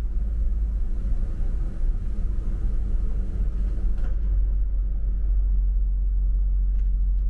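Steady low rumble of a moving double-decker bus, heard from its upper deck. The faint hiss riding over it drops away suddenly about four seconds in.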